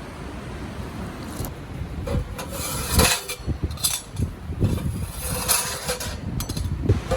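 Irregular knocks, scrapes and rustling over a steady background noise, the sharpest knock about three seconds in.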